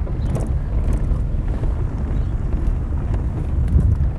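A car driving, with a steady low rumble of engine and tyres and a few light rattles.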